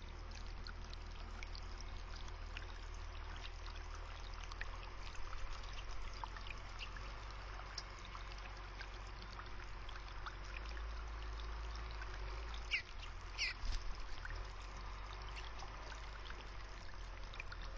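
Water trickling steadily into a rock-filled birdbath, with many small drips and splashes over a low hum. Two short, high bird calls come about thirteen seconds in.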